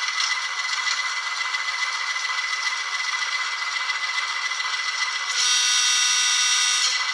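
An ESU LokSound 5 Micro decoder plays an ALCO 6-539T diesel engine sound through a tiny sugar-cube speaker in an N scale RS-1 model locomotive. The engine runs steadily and sounds thin, with no bass. About five seconds in, the locomotive's horn sounds once for about a second and a half, then cuts off.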